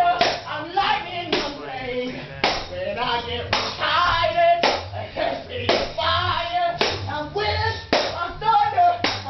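A band playing live in a small room: a heavy beat struck about once a second under a singing voice.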